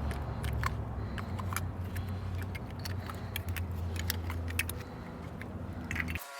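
Scattered small clicks and clinks as a pull tool pries the little covers off a Tesla Model X's wheels, over a steady low hum. The hum cuts off suddenly just before the end.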